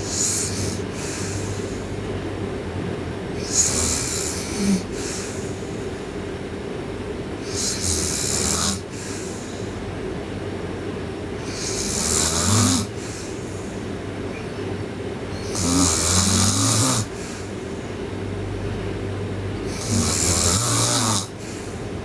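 A sleeping girl snoring loudly: six long snoring breaths, one about every four seconds, the later ones with a low rumble in them.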